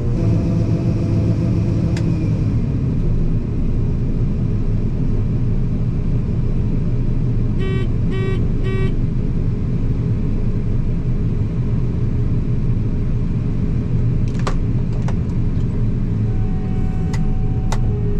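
Combine harvester running steadily with a deep engine hum, a whine falling in pitch over the first few seconds. Three short electronic beeps sound about eight seconds in, and a few sharp clicks come near the end.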